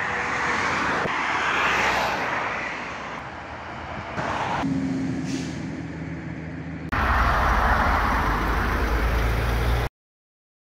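Road traffic on a highway, with vehicles passing by in several short edited segments. A steady engine hum comes in around the middle, and a louder, heavy rumble of a vehicle near the end cuts off suddenly.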